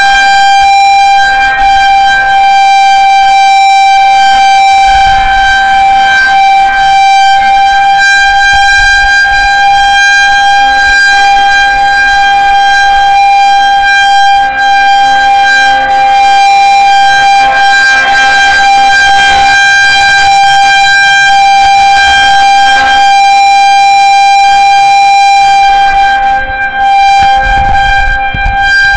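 Federal Signal 2001-130 electromechanical outdoor warning siren sounding a loud, steady single tone that holds one pitch throughout, the signal for a tornado warning.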